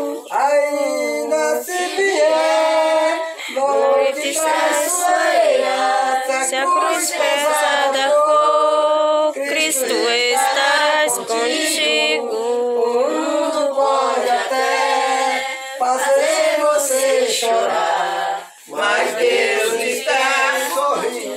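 A small group of men and women singing a Christian hymn together in Portuguese, carrying on steadily with brief pauses between lines.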